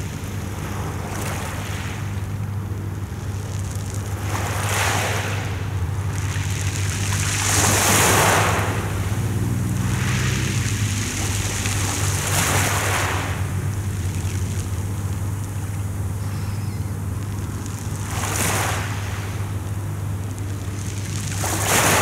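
Small sea waves washing up and drawing back over a pebble beach, a hissing surge every few seconds, the loudest about eight seconds in. A steady low hum runs underneath.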